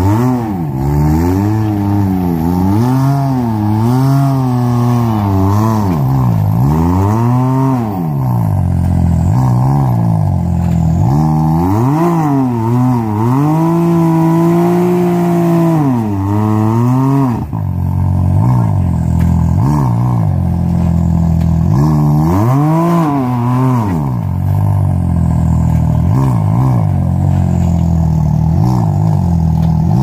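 Can-Am Maverick X3 side-by-side engine being revved hard and let off again and again as the driver works the throttle to climb a rock ledge. The pitch rises and falls every second or two, with a brief drop about two thirds of the way through.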